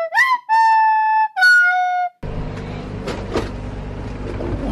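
A short flute-like tune of a few held notes, one sliding up in pitch, that cuts off about two seconds in. It is followed by a steady low hum with a few faint clicks.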